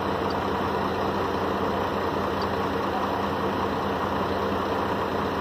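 Scania P340 truck's diesel engine idling, a steady even hum heard from inside the cab.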